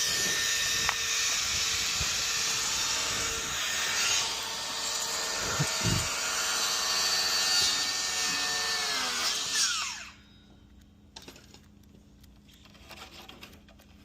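Power drill running steadily with a motor whine for about ten seconds. Its pitch then drops as it winds down and stops, leaving only faint clicks and knocks.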